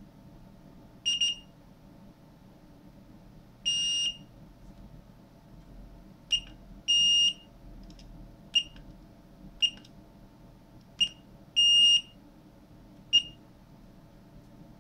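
Built-in beeper of an SL-06 shift light giving nine high-pitched electronic beeps at irregular gaps, mostly short with three longer ones of about half a second, as its buttons are pressed to step through the service menu.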